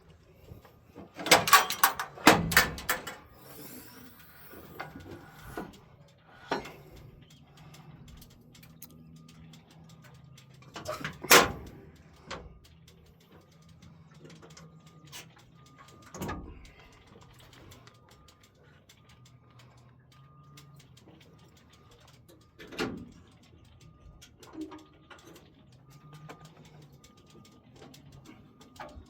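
Scattered metal clanks and knocks from handling the excavator's steel doors and panels: a quick cluster about two seconds in, then single knocks every few seconds, over a low steady hum.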